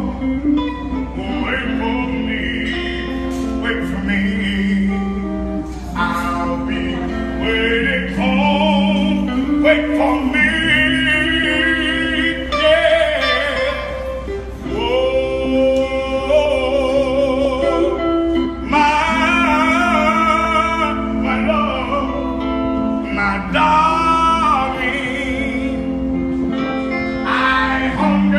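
A man singing a song with strong vibrato over steady instrumental backing.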